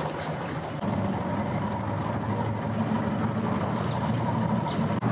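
Johnson outboard motor on a bass boat running at low speed, a steady low hum that grows a little louder about a second in.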